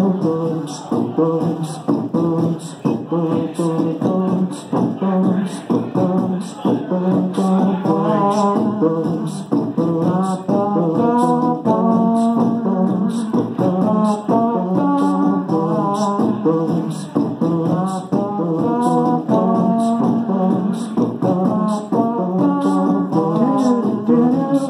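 Live vocal music with beatboxing, performed into a microphone cupped in both hands: a steady mouth-made beat with a pitched melody stepping up and down over it.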